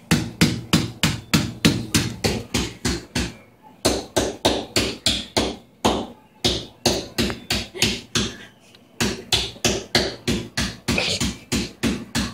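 Rapid repeated knocking, about four strikes a second, in runs broken by a few brief pauses.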